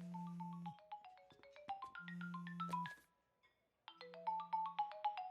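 A mobile-phone ringtone: a quick melodic run of short notes over a low held tone, playing twice with a short gap between.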